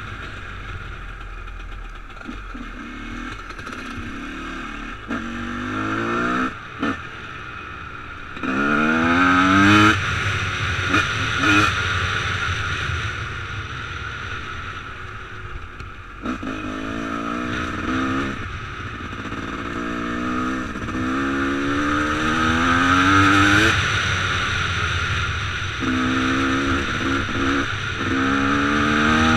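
Enduro dirt bike engine, heard from the rider's seat, revving up through the gears again and again. Each time its pitch climbs and then drops back at the shift, over a steady rushing noise.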